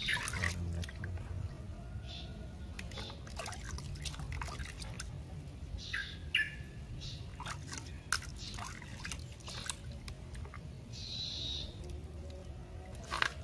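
Water splashing and dripping in a small plastic basin as hands scoop and pour it over a baby monkey, in short irregular splashes and drips.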